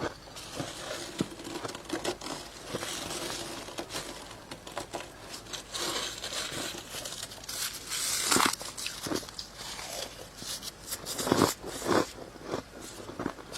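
Close-up biting and chewing of soft, powdery freezer frost: irregular crunching and crackling, with a few louder crunches in the second half.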